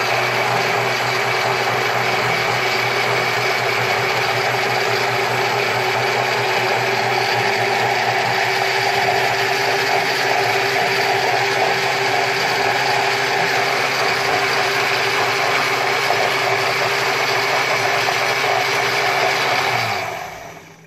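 Countertop blender motor running steadily as it blends eggs, garlic and oil into garlic mayonnaise. Near the end it is switched off and winds down.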